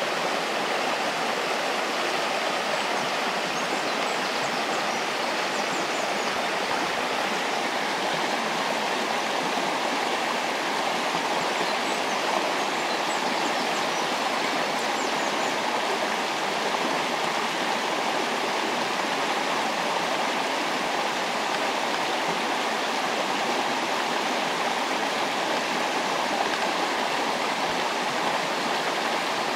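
Shallow river flowing over a stony bed: a steady, unbroken rush of water.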